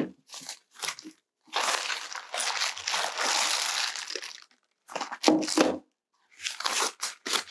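Clear plastic wrapping crinkling and a fabric drawstring bag rustling as a tripod is pulled out of its bag: a few short rustles, then one long crinkle of about three seconds, then more short rustles near the end.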